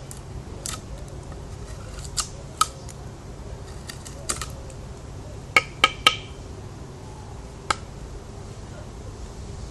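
Spyderco Paramilitary 2 folding knife in use, making a series of sharp, spaced clicks and snips over a steady low hum. Three clicks come in quick succession around the middle, some with a brief metallic ring.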